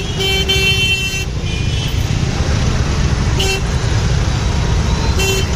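Horns honking in a dense traffic jam over the steady low rumble of idling motorbike, scooter and auto-rickshaw engines. There is a quick run of short honks in the first second or so, then single honks about three and a half seconds in and again near the end.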